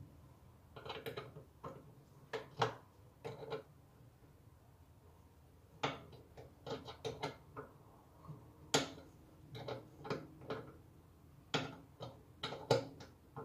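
Short metallic clicks, clinks and scrapes of a small hand tool working the hose clamp on a tractor's fuel-line fitting, as a new fuel hose is fitted and tightened. They come in irregular bursts with short pauses between them.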